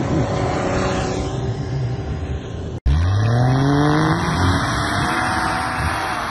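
Off-road SUV engine running, then revving hard under load as it ploughs through deep snow. After a sudden cut about three seconds in, the engine pitch climbs steeply and stays high.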